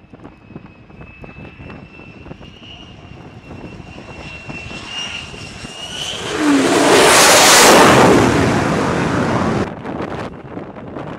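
Fighter jet on approach to an aircraft carrier: a high jet-engine whine grows slowly louder, then a loud rush of jet noise lasting about three seconds as the aircraft passes close over the deck on landing, cutting off abruptly near the end.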